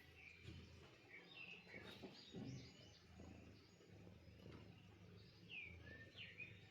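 Faint bird chirps: short, scattered chirps that glide up and down in pitch, the clearest pair near the end, over a low steady hum.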